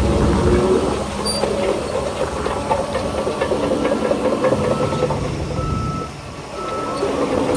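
Shantui crawler bulldozer's diesel engine running under load, its steel tracks clanking with short high squeaks. The sound drops briefly a little after six seconds, then picks up again.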